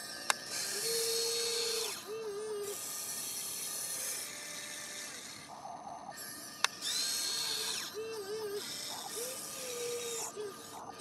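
Huina RC excavator's electric motors whirring in stop-start bursts as the boom and bucket move through sand, with two sharp clicks.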